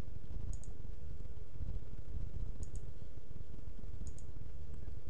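Computer mouse button clicking, three light paired clicks (press and release) about a second and a half apart, as line endpoints are placed in a drawing program, over a steady low hum.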